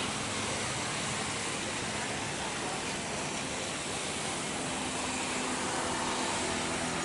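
Steady roar of airliner jet engines, with a faint high whine coming in near the end.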